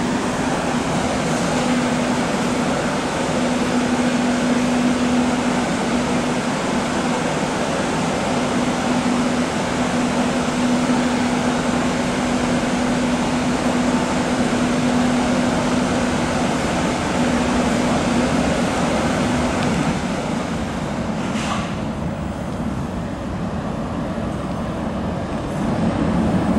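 Steady rumble and hum of an underground MTR metro platform, with a low hum that drops out about twenty seconds in and a single brief click a little later.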